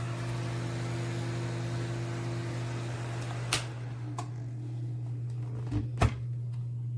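Small plug-in space heater running, a steady low hum with an airy fan hiss. About halfway through a click comes and the hiss stops, leaving the hum, followed by a few more light clicks.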